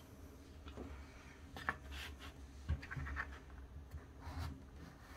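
Kitchen knife slicing lengthwise through a peeled zucchini, a quiet scratchy rasp with a few light knocks of the blade against a plastic cutting board.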